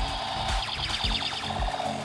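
Background music with a steady beat of about two thumps a second, over a rapidly pulsing electronic warble.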